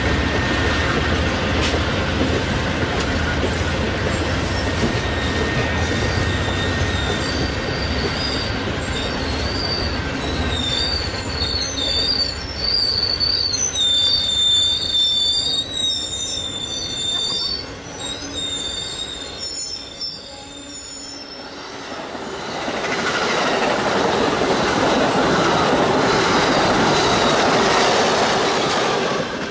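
Amtrak passenger train's stainless-steel cars rolling past, with high-pitched, wavering wheel squeal through the middle of the passage. After a brief dip, another train's cars roll by close and louder.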